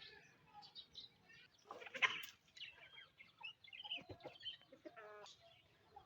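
Budgerigars chirping and chattering: a busy string of short chirps and warbles, the loudest call about two seconds in and a buzzier call near the five-second mark.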